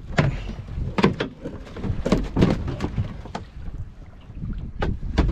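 Several knocks and bumps against a plastic fishing kayak as the landed fish and a rod are handled on board, over steady wind and water noise.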